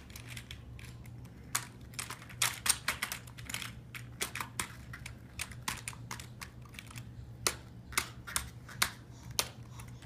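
Computer keyboard keys clacking in irregular bursts as two babies slap and press at them with their hands; the clicking starts about a second and a half in and goes on nearly to the end.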